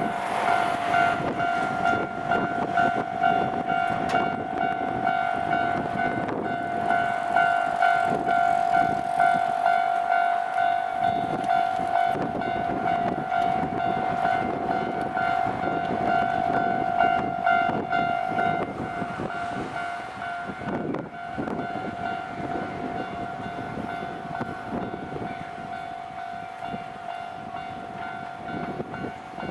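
Japanese railway level crossing's electronic warning bell ringing on and on in even, rapidly repeating dings, while a Nankai Kada Line train runs over the crossing with rumble and wheel clatter. The train noise eases off in the last third while the bell keeps ringing.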